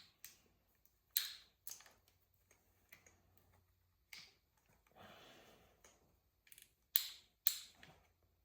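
Scattered sharp clicks and taps of metal tools and parts being handled during piston installation in an engine block, about six of them spread out, with a soft rustle in between.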